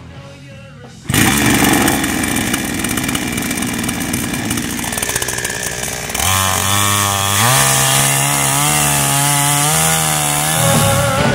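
Petrol chainsaw starting up loud about a second in and running at high revs while it cuts down into a wooden log stump. Its engine pitch shifts in steps as the chain bites into the wood.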